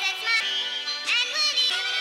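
Background music: a melody with a sung or synthesised vocal line, and no speech.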